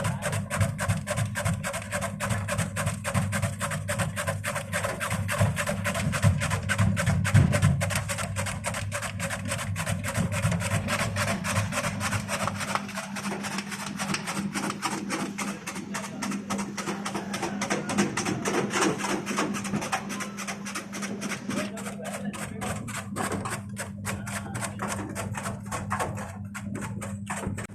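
Electric porang (konjac tuber) slicing machine running, its blades slicing tubers with rapid, even clacking over a steady motor hum. The clacking thins out with short gaps near the end.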